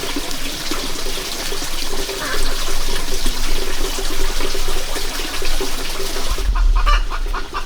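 Water running steadily for about six seconds, then stopping; chickens start clucking near the end.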